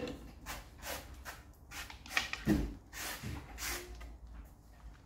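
A sponge wiped back and forth over a dusty unfinished wooden shelf top, in short strokes about two a second, with a louder dull knock about halfway through.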